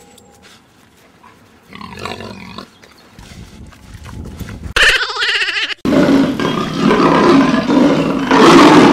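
Pig grunting and squealing sound effects, then from about six seconds in a loud, continuous lion-or-tiger roar effect.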